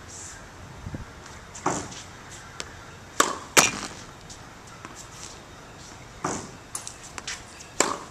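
Tennis balls bouncing on a hard court and struck by a racket: a handful of sharp pops, the loudest pair close together about three and a half seconds in, and a final racket hit near the end.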